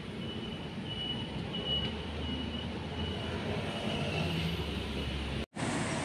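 Street traffic ambience with a low rumble of a passing vehicle through the middle, and a faint high-pitched tone repeating about every 0.7 seconds. The sound drops out briefly near the end.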